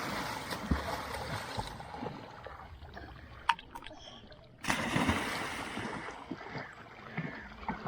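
Water splashing in a pond: a rush of splashing at the start that dies down, then a sudden larger splash a little past halfway that fades over a couple of seconds.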